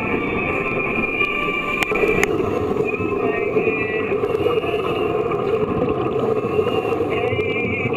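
Underwater sound in a scuba training pool, picked up by a camera in the water: a steady low rumble of water and air bubbles from the divers' regulators, with a thin high whine that warbles near the end.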